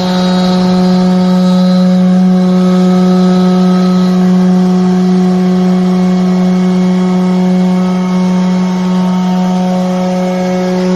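CNC router spindle motor running at constant speed while cutting wood, a steady unchanging whine with a rough cutting noise underneath.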